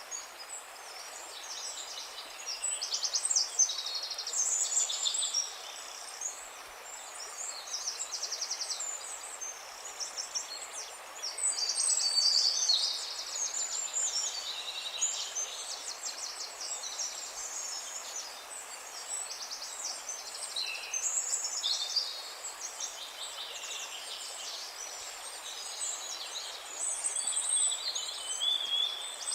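A dense chorus of many small songbirds chirping and trilling at once, with rapid stuttering trills and short whistled notes overlapping continuously over a soft steady hiss.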